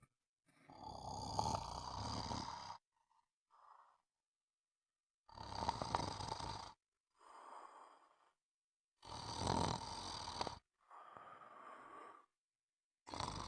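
Snoring in a slow, regular rhythm: a loud snore about every four seconds, each followed by a quieter, shorter breath out.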